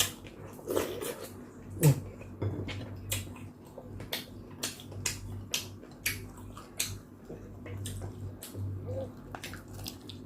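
Close-up eating sounds: wet chewing and sharp mouth clicks, with a few light clinks of utensils on dishes, over a steady low hum.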